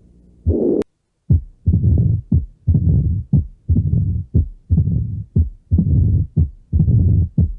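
Recorded heart sounds with a murmur, about one beat a second: each beat is a short sharp sound followed by a longer rough noise. Just under a second in, a click and a brief silence break between two different recordings.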